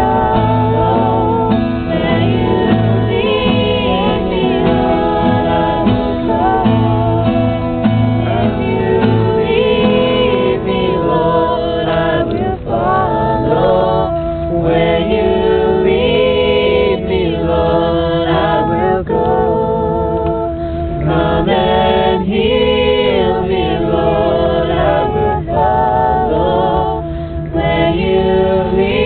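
A group of people singing a worship song together, with acoustic guitar accompaniment.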